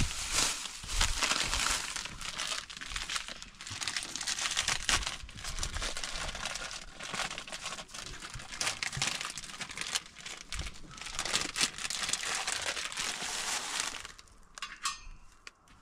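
Crinkling of a plastic bag being handled and crumpled by hand, a continuous crackling rustle that stops near the end.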